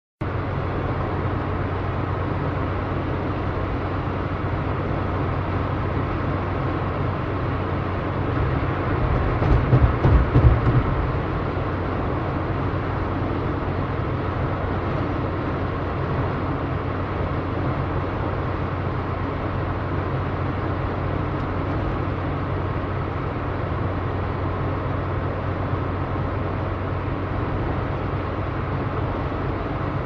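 Car driving: steady engine hum and road noise. About nine seconds in, a louder low rumble swells for a couple of seconds, then settles back.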